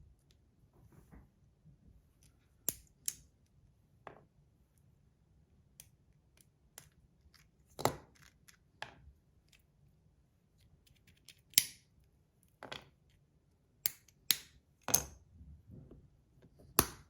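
About a dozen sharp, irregular clicks and snaps of small parts of a 3D-printed fidget slider (plates and magnets) being handled and fitted together.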